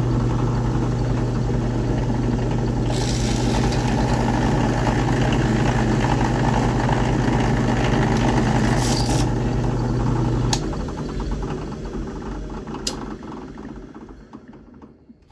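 Benchtop drill press switched on and running with a steady motor hum, its bit grinding into the metal rivet that holds a toy train car's truck for several seconds in the middle. About ten seconds in the motor is switched off and spins down, fading to a stop.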